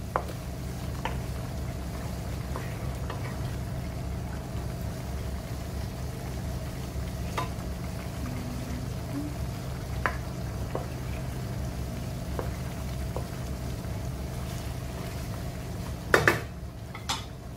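Chicken adobo simmering in its soy sauce as the sauce reduces, stirred with a wooden spatula that knocks now and then against the pan, with a louder clatter of knocks about 16 seconds in. A steady low hum runs underneath.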